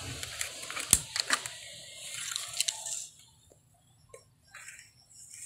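Tape measure being hooked and drawn along an aluminum jalousie window frame: rustling handling noise with a few sharp clicks, the loudest about a second in, dying away about three seconds in.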